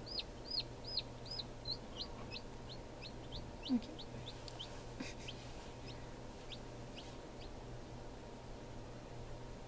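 Newly hatched chick peeping: a run of short calls that fall in pitch, two to three a second, growing sparser and stopping about three-quarters of the way through. A brief low sound comes about four seconds in, over the steady hum of the incubator.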